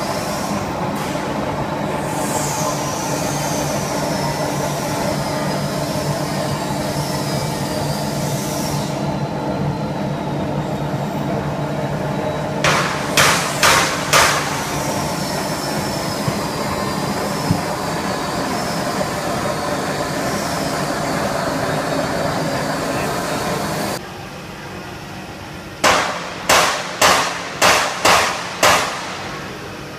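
240 V vacuum homogenizer mixer running: a steady motor hum with a wavering high whine, which drops suddenly to a much quieter level about six seconds before the end. Sharp knocks come in quick runs, four near the middle and six near the end.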